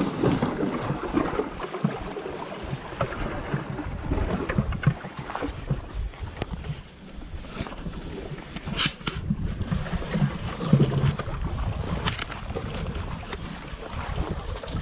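Wind rumbling on the microphone over small waves lapping among jetty rocks, with scattered scrapes and knocks from someone clambering over granite blocks, most of them a little past halfway.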